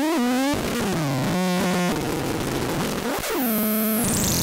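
Patchable four-oscillator drone synth putting out harsh electronic noise: buzzing tones that swoop up and down in pitch over a hiss, a choppy, stuttering stretch in the middle, and near the end a return to dense hiss with a high whistle gliding down.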